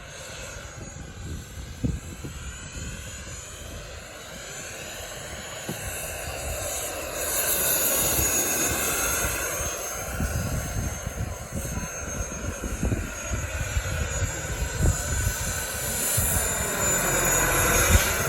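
Radio-controlled turbine helicopter in flight: a steady high turbine whine whose sound sweeps up and down as the model moves about, getting louder about seven seconds in.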